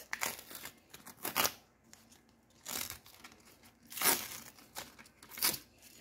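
Machine-cut heat-transfer vinyl being peeled away from its sheet by hand: a series of short crinkling, tearing rips.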